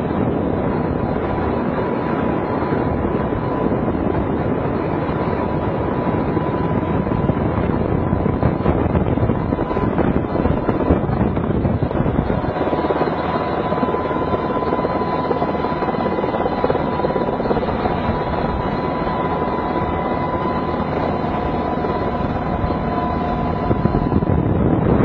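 Military helicopter heard from inside its cabin with the side door open: steady, loud rotor and engine noise with a thin steady whine above it.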